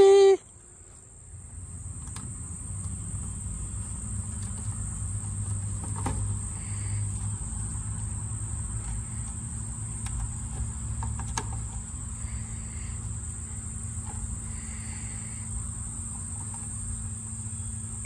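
Steady high-pitched insect chirring, over a low steady hum that comes in about a second in.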